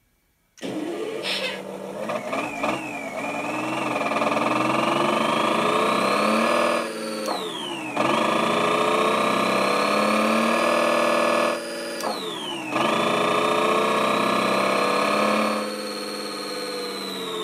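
Simulated Detroit Diesel engine sound from an ESP32 RC engine sound controller, played through two small speakers. It starts up about half a second in, revs up three times with the pitch climbing and dropping back each time, and settles to idle near the end. A high whine rises and falls with the revs.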